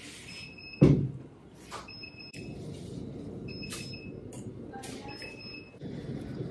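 An electronic beeper sounding a short high beep four times, about every second and a half, over a steady background din; a single sharp knock about a second in is the loudest sound.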